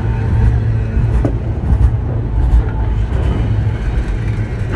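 Double-stack container well cars of a freight train rolling past: a steady low rumble of steel wheels on rail, with a few sharp clacks about a second, a second and a half and two and a half seconds in.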